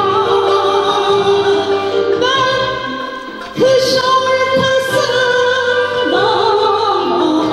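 Female soloist singing a Turkish classical art song in the makam Kürdilihicazkar, with held, ornamented notes over an instrumental ensemble. The music dips briefly about three seconds in, then the voice comes back strongly.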